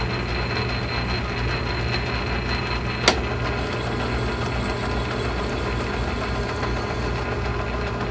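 1941 South Bend lathe running under power, spindle and gear train turning with a steady low hum while the carriage feeds along on the half nut, scribing a light 32-threads-per-inch test thread in aluminium. One sharp click about three seconds in.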